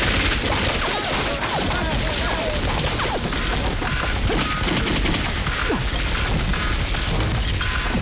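Film gunfight sound: rapid, overlapping pistol shots from several guns, continuing without a break.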